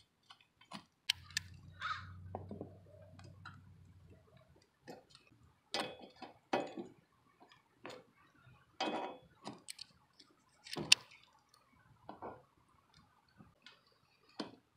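Small metal hardware being handled at a garden cart wheel's axle hub: a washer and cotter pin clicking and tapping irregularly against the axle and plastic hub, with one sharp click about eleven seconds in.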